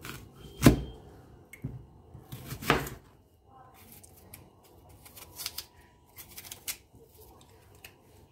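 Kitchen knife cutting through an apple and striking the cutting board: a loud chop about a second in and another about two seconds later, then lighter clicks and taps as the core and seeds are trimmed from the wedges.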